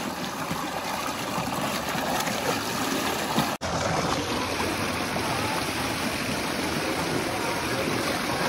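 Water pouring and splashing steadily into an open-air makeshift shower where someone bathes after a workout. The sound cuts out for an instant about three and a half seconds in.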